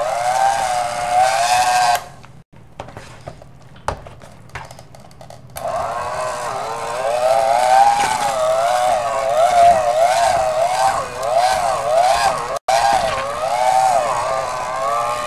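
Electric hand mixer running in a thick peanut butter and whipped-topping mixture, its motor whine wavering up and down in pitch as the beaters work through it. It stops for a few seconds about two seconds in, then runs again.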